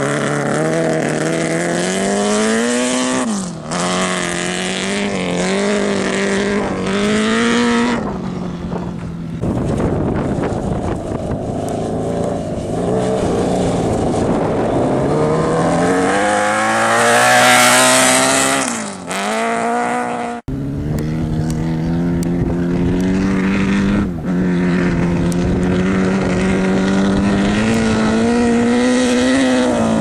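Honda Blackbird inline-four motorcycle engine in a dune buggy, revving hard: its pitch climbs through each gear and drops sharply at the shifts, about four, nineteen and twenty-four seconds in. The sound cuts off for an instant about twenty seconds in.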